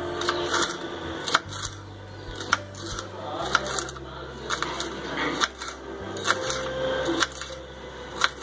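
Kitchen knife slicing a green bell pepper into strips on a wooden cutting board: irregular sharp taps of the blade hitting the board, about one or two a second.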